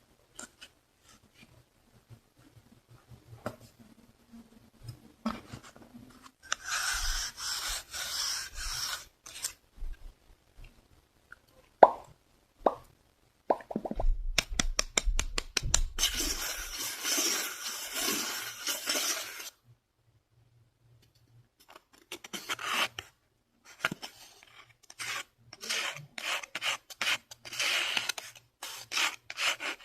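Close-miked ASMR scratching on a surface in several fast runs, with a few sharp pops partway through and a brief pause about two-thirds in.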